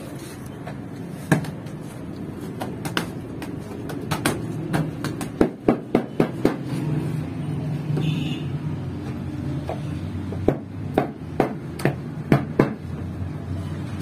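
Irregular sharp knocks and taps from bread-baking work, bunched in two spells, over a steady low hum.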